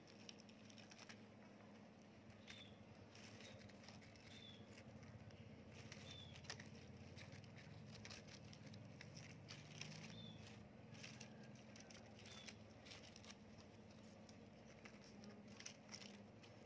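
Near silence: faint outdoor background with scattered light clicks and a short, high chirp every couple of seconds.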